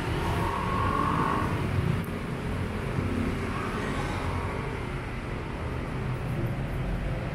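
Street traffic on a city road: vehicle engines and tyres in a steady rumble and hiss, a little louder for the first two seconds.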